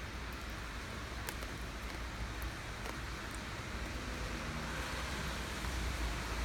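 Steady rain with a few separate drops ticking, over a constant low rumble. It grows slowly louder near the end.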